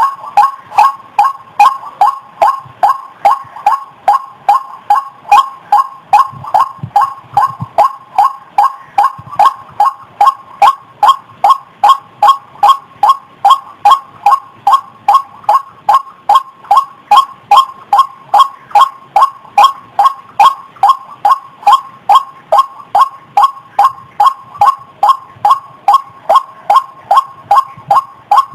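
White-breasted waterhen (ruak-ruak) lure call: a short pitched "kwak" note repeated evenly about twice a second, steady and unbroken.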